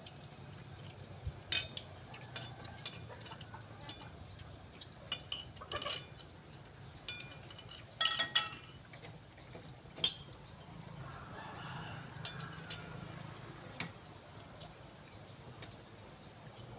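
Metal spoons clinking and scraping against plates as people eat, in scattered irregular taps. The loudest cluster comes about eight seconds in.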